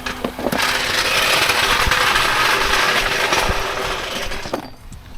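A power tool running in one steady burst of about four seconds, cutting off shortly before the end.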